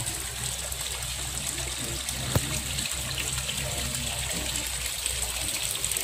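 Steady trickling and splashing of water into a shallow tiled fish pond, where the inflow churns the surface into white froth. One sharp click about two seconds in.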